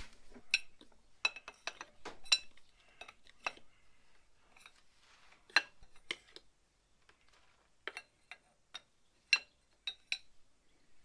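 Steel open-ended spanners clinking against a hydraulic quick-connect fitting. About a dozen short, ringing metal clinks come at irregular intervals, with quiet gaps between them.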